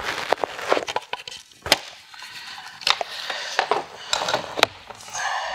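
Plastic grille pieces being pried out of a 2015 Acura TLX front bumper cover: a run of irregular sharp clicks, cracks and creaks with scraping between them.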